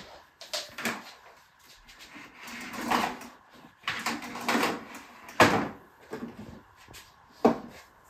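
Hose and plastic tube of a switched-off Bosch canister vacuum cleaner being handled and stood upright: scattered light knocks and rustles, with two sharp knocks about five and a half and seven and a half seconds in.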